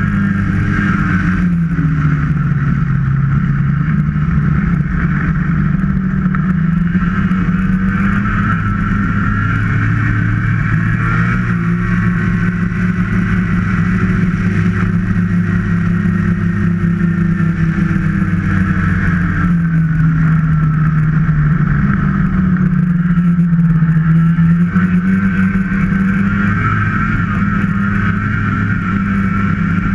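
Snowmobile engine running under way at cruising speed, its pitch sagging and climbing slowly a few times with the throttle, with a higher whine running along above it.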